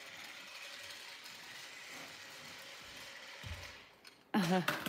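Toy chainsaw running with a steady whirring buzz for about three and a half seconds, then a low thump; a brief voice near the end.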